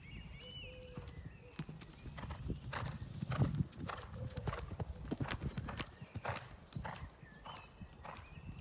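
Hoofbeats of a ridden horse cantering on a sand arena surface, a steady run of dull thuds about two to three a second.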